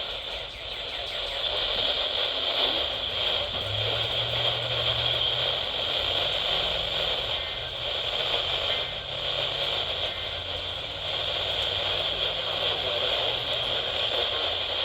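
Weather radio receiver picking up a weak, distant NOAA Weather Radio station (KHB32): steady static hiss with a faint, unintelligible broadcast voice underneath, the sign of a signal at the edge of reception.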